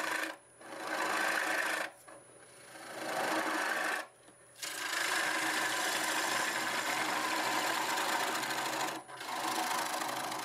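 Gouge cutting the inside of a spinning mimosa bowl on a wood lathe: a rough scraping hiss in several long passes, broken by short pauses about half a second, two seconds, four seconds and nine seconds in, with the lathe's steady hum beneath.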